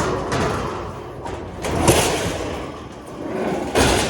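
Heavy metal electrical box scraping and sliding across a trailer, with two louder clunks, about two seconds in and near the end.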